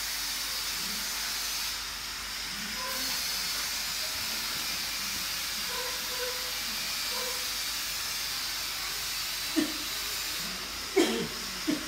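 A steady hiss, with three short sharp sounds near the end.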